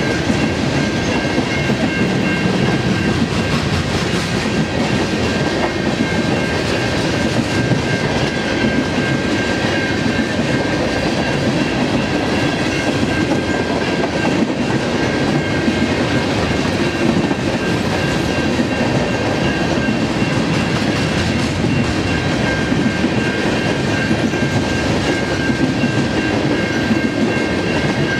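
Loaded grain train's covered hopper cars rolling past, steel wheels clattering steadily over the rail joints with a constant rumble. A faint steady high ring sits over the clatter.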